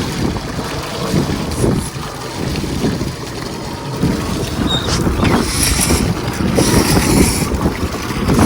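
Wind buffeting the microphone on an open boat at sea: a steady low rumble with uneven gusts, and a brighter hiss for a couple of seconds in the middle.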